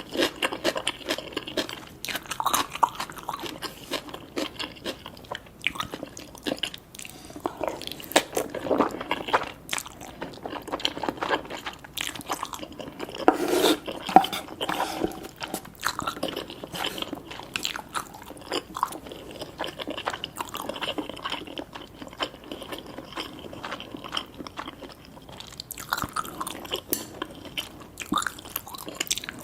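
Close-miked chewing and crunching of food, a dense run of small crisp clicks and wet mouth sounds throughout.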